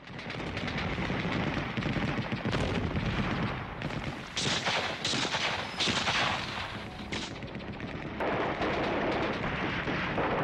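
Battle sound: continuous rapid gunfire crackle, with several louder blasts in the middle stretch.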